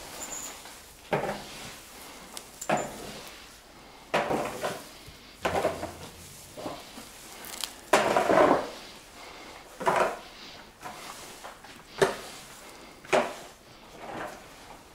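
Fresh-cut grass and straw rustling and crunching as armfuls are handled and tossed to the calves, in short irregular bursts about once a second, the loudest about eight seconds in.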